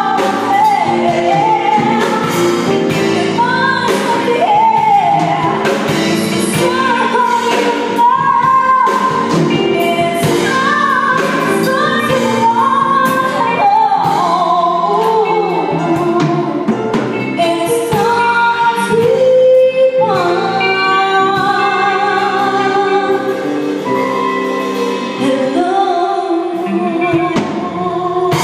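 Live band playing a song, with a woman singing the lead over drums and guitars.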